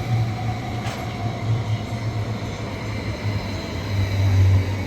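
GoldenPass Express train running, a steady low rumble of the carriage on the rails that swells briefly near the end, with a faint knock about a second in.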